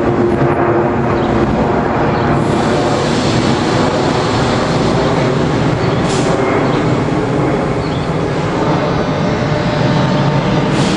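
NS 1700-class electric locomotive of a DD-AR double-deck train standing at the platform, its machinery running in a loud, steady whir. Two brief hisses, about six seconds in and near the end.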